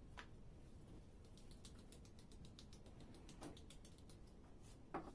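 Faint kitchen handling: a soft pat as a thin rolled-out sheet of baklava dough is laid on the stack, then a run of light, rapid ticks as starch is shaken through a handled sieve over the dough, and another soft pat near the end.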